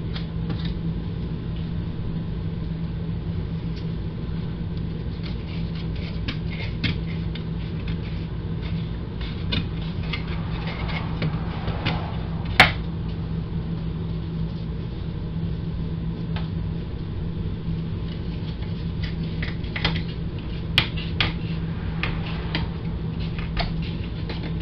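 Wooden interior trim around an RV window being pried off its brad nails: scattered small clicks and creaks, with a sharp snap about halfway through and another a little later, over a steady low hum.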